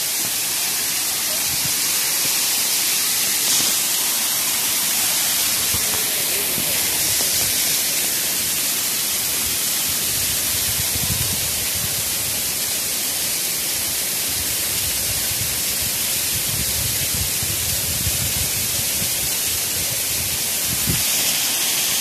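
Waterfall rushing in a steady, even hiss of falling water, with a few brief low rumbles around the middle and near the end.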